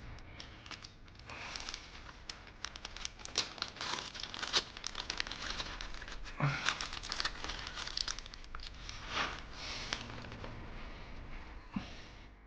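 Hands working a screw out of a side skirt mounting bracket and handling the plastic hardware: irregular small clicks, taps and rustling.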